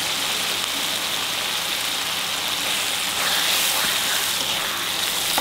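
Spiced onion gravy sizzling steadily in a metal wok-shaped pan as fried fish pieces are stirred back into it with a metal spoon.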